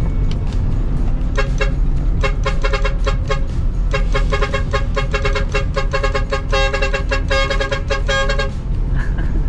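Truck's musical horn sounding a long, fast run of short toots over a diesel engine running underneath.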